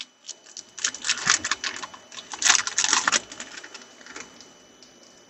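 Trading cards and a foil pack wrapper being handled on a table: a dense run of crackling clicks and rustles lasting about three seconds, then dying away.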